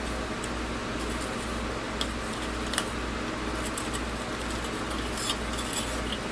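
A few scattered faint clicks of plastic model-kit parts being popped off their runner, with a steady low hum underneath.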